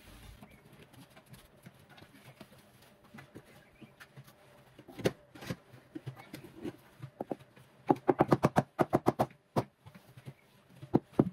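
Quick knocks on a large porcelain paving tile as it is tapped down into its mortar bed. A few single knocks come first, then a fast run of about a dozen taps in the second half and a shorter run near the end.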